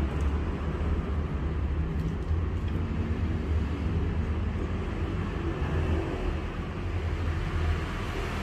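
Steady low rumbling background noise, with no clear single event in it.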